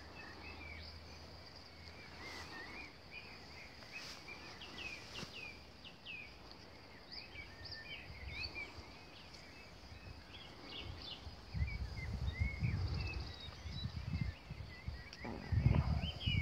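Several birds singing in short chirps and whistles over a steady, high insect buzz. From about twelve seconds in, low, uneven thumping on the microphone is the loudest sound.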